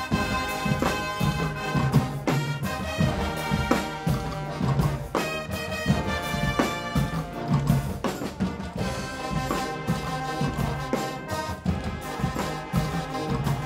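Guggenmusik band playing live: a large brass section of trumpets, trombones and sousaphones over snare, tom and bass drums keeping a steady beat.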